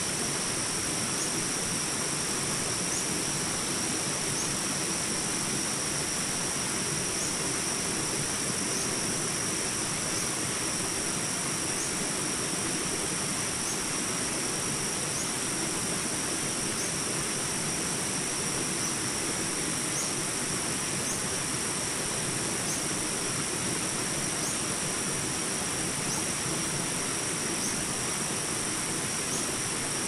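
Shallow rocky stream rushing steadily over small rapids and around boulders, with an unbroken high-pitched ringing above the water and faint chirps repeating about once a second.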